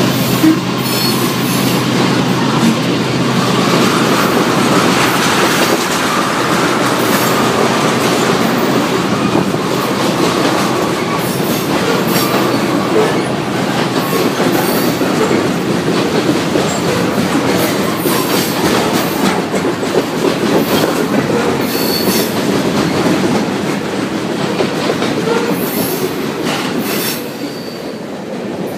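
Freight train of covered hoppers and tank cars rolling past close by: a steady rumble of steel wheels on rail with clickety-clack over the joints and faint wheel squeal. It eases slightly near the end.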